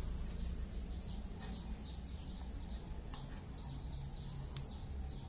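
Insects trilling in a steady, unbroken high-pitched buzz, an outdoor cricket chorus.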